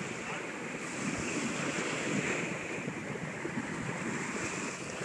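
Ocean surf breaking and washing up the sand in a steady rush that swells about a second in and again around two seconds, with wind buffeting the microphone.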